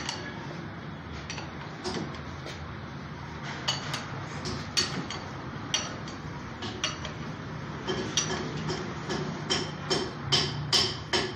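Sharp metallic clicks, about one or two a second and coming faster near the end, as a Mahindra mHawk diesel engine's crankshaft is turned over by hand with a socket wrench, rotating the freshly fitted timing chain and sprockets to check the timing.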